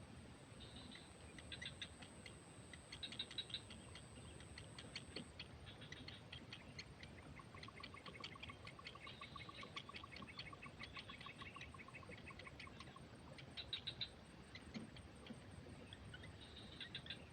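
Faint small-bird calls: bursts of short, rapid high chirps repeated every second or two, with a faster run of lower pulsed notes in the middle. A thin, steady, very high tone runs underneath.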